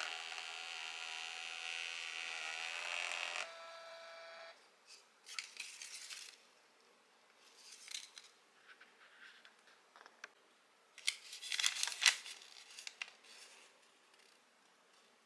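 Pocket thermal label printer whirring with a steady buzz as it prints and feeds the sticker paper, stopping about three and a half seconds in, with a fainter single-tone hum for another second. Then comes paper rustling and crinkling as the printed label strip is handled and pulled from the printer, loudest near the end.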